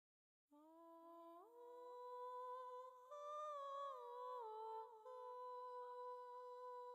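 Soft melodic outro tone: a low note that steps up about a second in, a few notes that bend and slide down around the middle, then one long held note.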